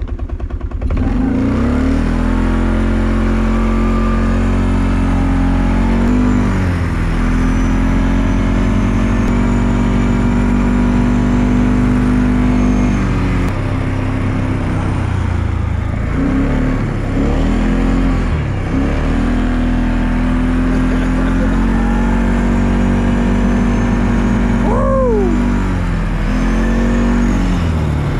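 ATV (four-wheeler) engine running hard, heard from the rider's seat, its pitch rising and falling over and over as the throttle is opened and eased through the snow, with several brief drops when the throttle is let off.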